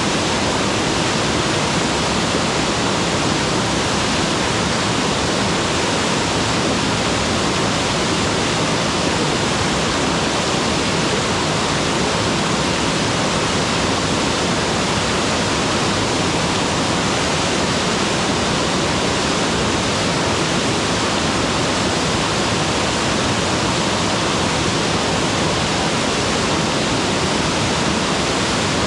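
Mountain waterfall pouring steadily: a loud, even rush of falling water with no pauses or changes.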